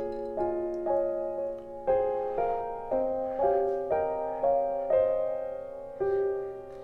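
Background music: a soft piano piece, with notes struck about twice a second over lower held notes.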